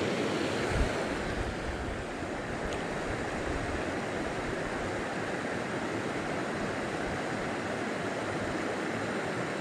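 Steady rushing of a small stream's flowing water, with a single light knock just under a second in.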